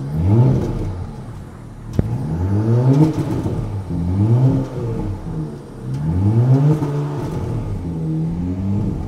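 Porsche Panamera's turbocharged V6 being revved in short blips, its pitch rising and falling again about four or five times.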